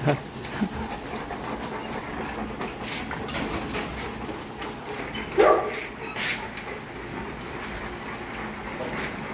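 Caged dogs barking, with one loud bark about five and a half seconds in and a few sharp knocks around it.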